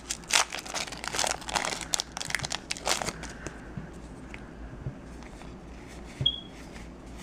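Foil trading-card booster pack crinkling and tearing as it is opened, dense for about the first three seconds, then only a few faint ticks as the cards are handled.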